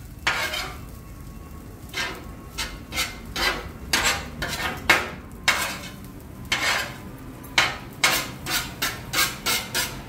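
Metal spatula and turner clanking and scraping on a hot flat-top griddle as a mound of fried rice is stirred and chopped, in irregular strikes that come faster toward the end, over a light sizzle of frying.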